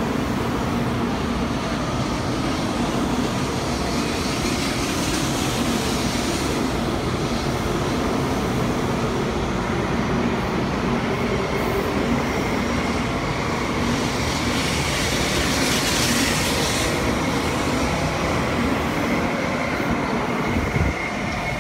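Taiwan High Speed Rail 700T high-speed train pulling out of an underground station, its carriages running past at close range with a steady noise of wheels and air. A brighter hiss swells about fifteen seconds in, and a faint steady high tone comes in near the end.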